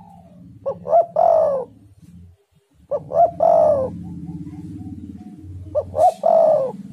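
Spotted dove cooing in its cage: three calls about three seconds apart, each two short notes followed by a longer, slightly falling coo.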